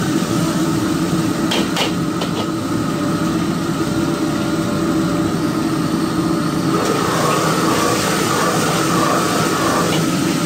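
Steady roar of a commercial gas wok burner under a wok of stir-frying meat. A few sharp clanks of the metal ladle against the wok come about a second and a half in.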